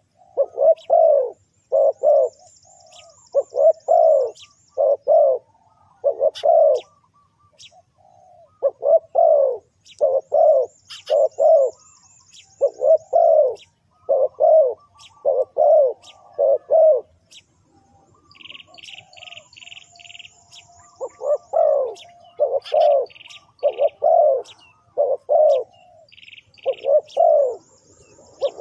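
Spotted dove cooing in repeated phrases of two or three low, falling coos, a lure call for wild doves. Faint high chirps of smaller birds run behind it, and short rapid call notes come in during the second half.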